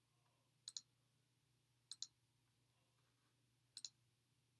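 Computer clicks: three quick double clicks, a little over a second apart, over near silence with a faint steady low hum.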